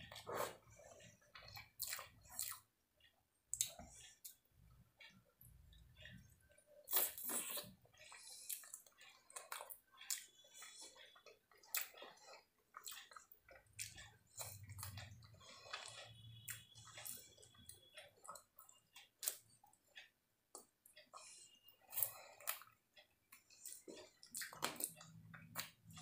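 Chewing and wet mouth sounds of a person eating fried rice, noodles and chilli chicken by hand: irregular smacks and clicks.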